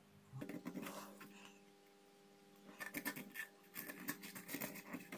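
Faint scratching and light clicking of a soldering iron tip dragged across desoldering braid along a row of IC pins, in two spells, over a faint steady hum.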